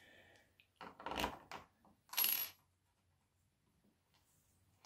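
Small metal hardware clinking as the jig's adjuster knob and washers are handled and fitted onto a threaded rod: three short clinks and rattles in the first two and a half seconds, one with a thin high ring.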